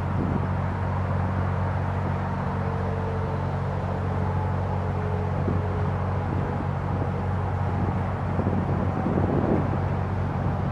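Narrowboat's diesel engine running steadily at cruising speed, a low even drone. Wind buffets the microphone in the last few seconds.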